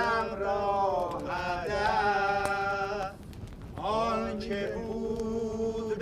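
Men singing a slow song about the mountains in long held notes: one sung phrase, a short break for breath about three seconds in, then another long held note.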